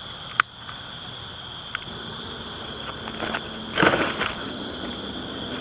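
A cooking-oil-soaked paper napkin being lit under firewood: a sharp click shortly after the start, then crackling and rustling that bunch up about four seconds in. Crickets chirr steadily in the background.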